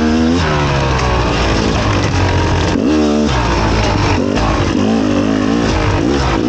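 Fantic XE 300 two-stroke enduro motorcycle engine revving up and down with the throttle. The revs fall at the start and climb sharply about three seconds in.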